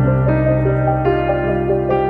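Background music: a piano or electric piano playing a gentle melody over a held bass note.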